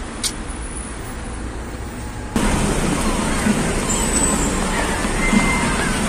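Street traffic noise with a sharp click a moment in. About two seconds in it cuts to louder traffic with many short bird calls from a flock of birds overhead.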